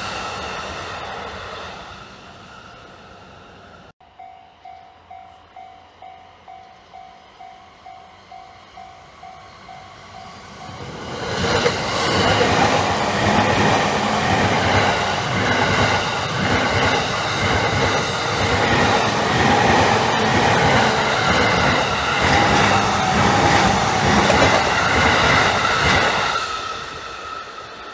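A passing train fades away. After a sudden break, a level-crossing warning bell rings at about two dings a second. A Takasaki Line electric train then runs loudly through the crossing for about fifteen seconds, drowning out the bell, and fades near the end.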